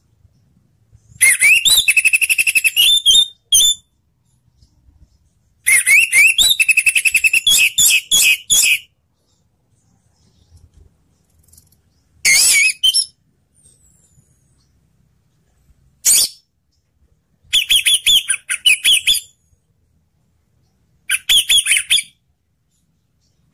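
Orange-headed thrush singing in short bursts of rapid twittering song, about half a dozen phrases of one to three seconds each with pauses between.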